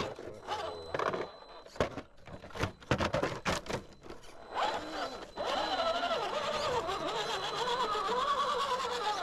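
Small RC rock crawler climbing concrete rubble: a run of sharp knocks and clicks as its tyres and chassis strike the rock, then, from about five seconds in, its brushless motor and geared drivetrain whining steadily, the pitch wavering up and down with the throttle.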